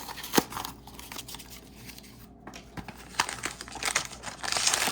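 Blind-bag packaging crinkling and rustling in the hands, with a few sharp clicks and a louder stretch of crinkling near the end.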